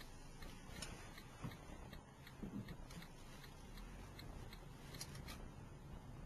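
Inside a car's cabin, the low rumble of the car driving slowly, with a faint, regular ticking about two to three times a second.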